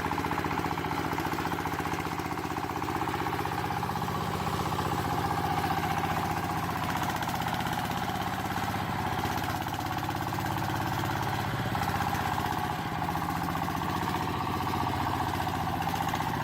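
Small engine running steadily at an even idle, with a fast, regular chugging.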